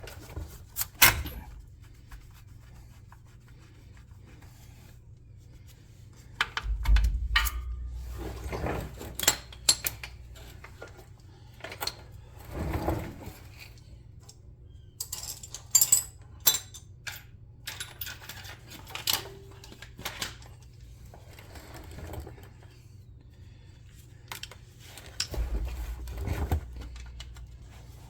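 Hand tools and small metal parts clicking, clinking and knocking at irregular intervals during work on a car's shifter linkage, with a few heavier knocks.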